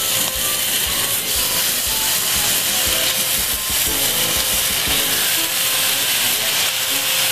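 Raw chicken pieces sizzling in hot oil and curry paste in a cooking pot: a steady hiss.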